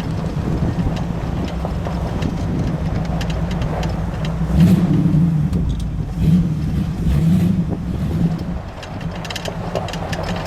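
Jeep CJ engine running through its exhaust, revved up briefly about four times around the middle.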